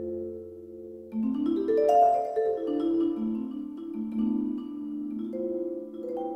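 Sampled vibraphone with effects, played from a malletKAT electronic mallet controller through a gigKAT 2 sound module. A low bass tone fades out about a second in as a new run of mallet notes enters, rising then falling. The notes then ring on, overlapping, with a wavering tremolo.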